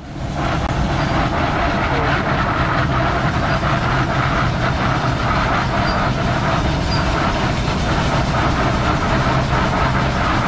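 Large vintage steel-wheeled tractor running steadily as it drives slowly past.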